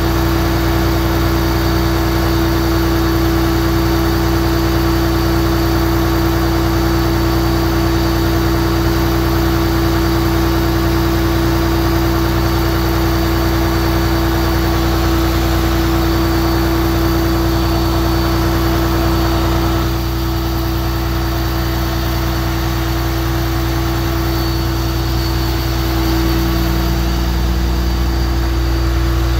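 Fire engine's motor running steadily to power its raised aerial ladder platform, a constant hum with one strong held tone that eases slightly in level about two-thirds of the way through.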